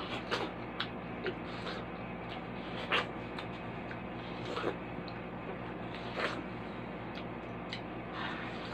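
Bites, slurps and chewing of juicy watermelon flesh eaten off the rind: irregular short crisp bites and wet smacks, the loudest about three seconds in, over a steady low hum.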